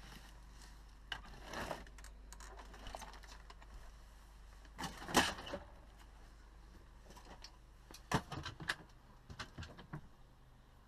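Scattered clicks, knocks and rustles of things being handled in a small room, over a faint steady low hum. A run of sharp clicks and knocks about eight to ten seconds in comes from the catches and gas-strut lift-up doors of overhead cabinet lockers being opened.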